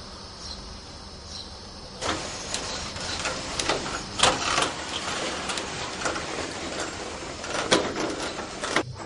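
Window roller shutter being hauled up by its pull strap. From about two seconds in the slats rattle and clack continuously as they roll up, and the sound stops abruptly near the end.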